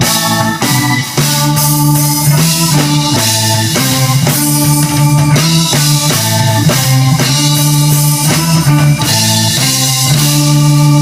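Live band playing an instrumental passage between sung lines: electric guitar, bass and drum kit keeping a steady beat.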